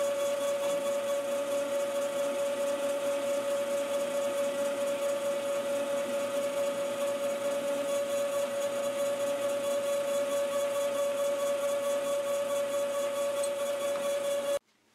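Small bench lathe running steadily with a strong high hum while a 1/4-inch reamer is fed into a spinning casting held in the four-jaw chuck. The lathe is switched off and cuts out suddenly near the end.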